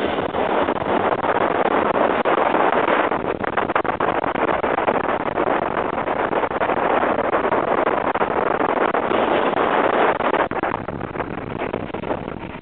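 Wind rushing over the microphone as a launched roller coaster train speeds along its track, a loud steady rush that eases slightly near the end.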